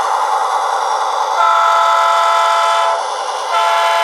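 Sound from a Soundtraxx ECO sound decoder in an HO-scale Athearn SD45 tunnel motor, playing through two sugar cube speakers: a diesel engine sound running, with two long horn blasts, the first about a second and a half in and the second near the end. The sound is thin, with no bass from the tiny speakers.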